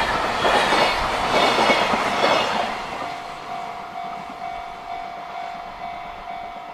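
Freight train rolling past with wheel clatter on rail joints, loud at first and then fading away about three seconds in. A steady, slightly pulsing ringing tone from the level crossing's warning bell carries on as the train noise dies down.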